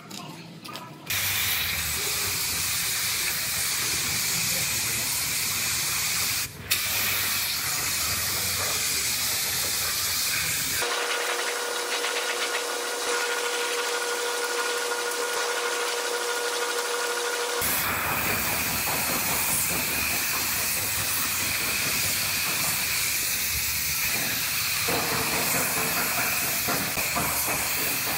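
Steady compressed-air hiss of a paint spray gun spraying the panel. For several seconds in the middle the hiss gives way to a different steady sound with a few held tones.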